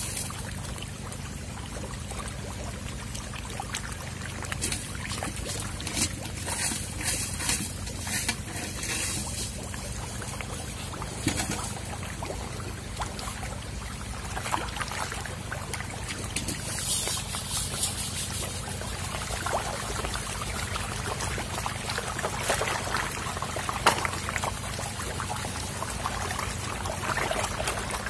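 Water splashing, sloshing and trickling without a break as a tightly packed mass of hybrid magur catfish thrash and jostle at the surface while feeding, with many small irregular splashes.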